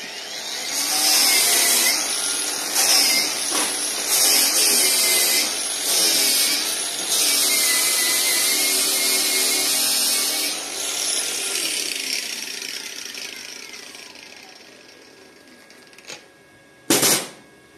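Cordless angle grinder with a wire cup brush running and scrubbing a flux-core weld on steel plate, its sound dipping and rising as the brush bites. It is then switched off and spins down over several seconds, and a single sharp knock comes near the end.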